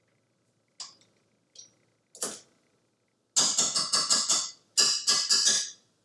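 Sticky bread dough being pulled off a stand mixer's beater by hand over the steel bowl: a few light clicks, then two runs of quick, rhythmic strokes about a second each, roughly six a second.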